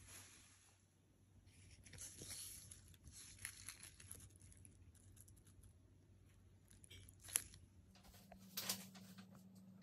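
Faint rustling and crinkling of a plastic mesh onion bag and its tag being handled. There is a sharp click about seven seconds in and a short rustle soon after.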